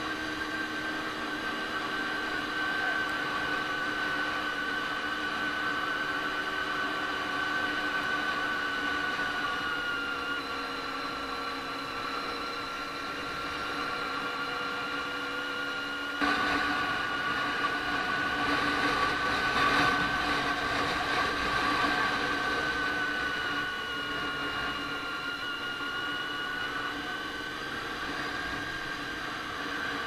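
Honda VFR400R NC30's V4 engine running steadily as the motorcycle rides along, its pitch drifting slowly. It gets suddenly louder about halfway through for several seconds, then eases back.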